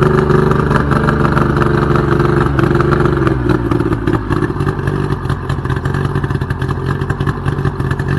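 Boat outboard motor running steadily; about three to four seconds in its pitch drops and it settles into a lower, steady run.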